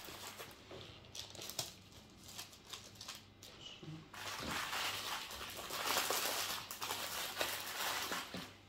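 Wrapping crinkling as it is handled, with light rustles and small taps at first, then a denser, louder crinkling from about halfway that lasts some four seconds.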